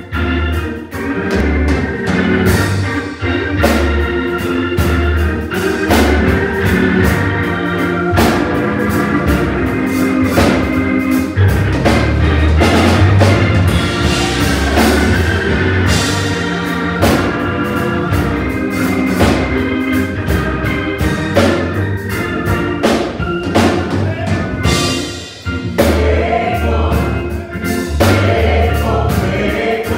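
Small gospel vocal group singing in harmony, backed by organ and a steady beat.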